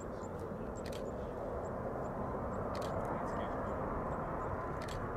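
Airbus A380-861 airliner on final approach with gear down, its four Engine Alliance GP7200 turbofans giving a steady jet rumble with a faint whine, slowly growing louder as it nears. Faint sharp ticks sound about every two seconds over it.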